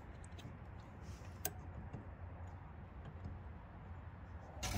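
Faint, scattered small clicks and taps over a low steady hum, with one clearer click about a second and a half in and a louder brief knock just before the end.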